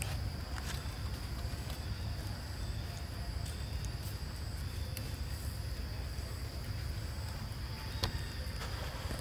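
Forest insects droning in one steady high tone over a low rumble, with scattered light clicks and one sharper click about eight seconds in.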